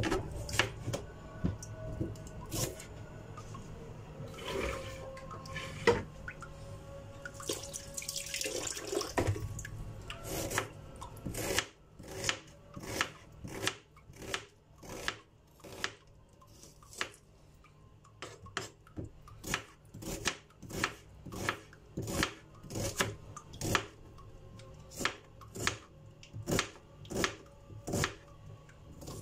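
Chef's knife chopping a red onion on a plastic cutting board: sharp knocks of the blade against the board, irregular at first, then a steady run of about two chops a second through the second half.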